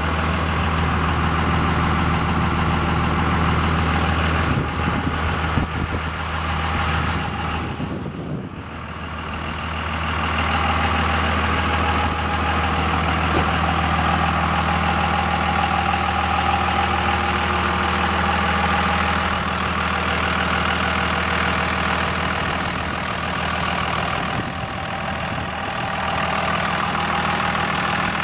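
2001 Dodge Ram 2500's 5.9-litre Cummins inline-six turbo diesel idling steadily. The sound briefly drops in level about eight seconds in.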